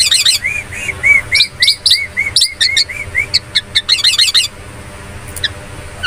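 Javan myna calling close up: a run of short arched chirps at about four a second, mixed with sharp high downward-sweeping notes. The high notes come in a dense flurry at the start and again about four seconds in. After that the calling thins out to a single note.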